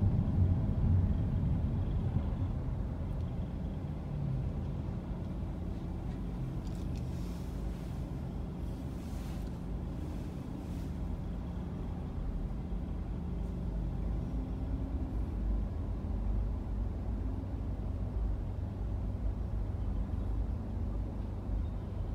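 Car's low engine and road rumble, easing off over the first few seconds as the car slows, then a steady low hum while it stands still.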